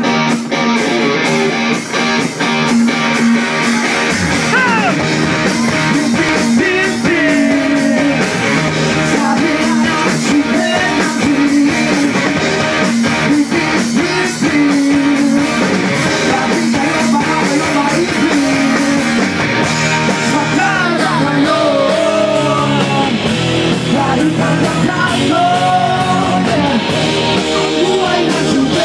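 Rock music with guitar and a singing voice, playing steadily.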